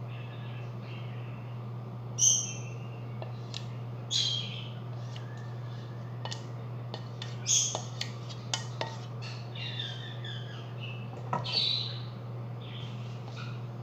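Birds chirping and squawking in irregular calls, the loudest about four times, over a steady low hum. Light clinks of a metal spoon against a pan come in between.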